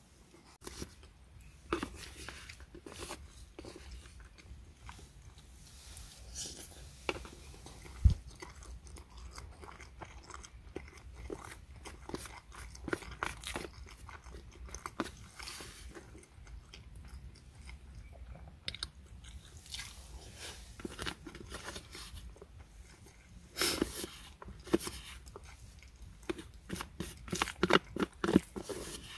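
Close-up eating sounds: a wooden spoon scraping and clicking against a plastic meal tray, with chewing, in many short irregular strokes. A sharper knock comes about eight seconds in, and the scraping grows busier near the end as the tray is scraped clean.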